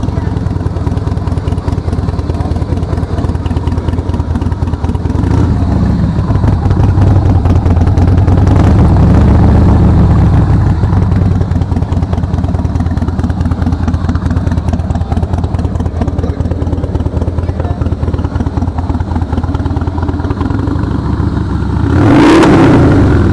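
Harley-Davidson V-twin motorcycle engine idling through its exhaust with a rapid, uneven beat. It is revved up for several seconds about a quarter of the way in, then given one short, sharp blip of the throttle near the end.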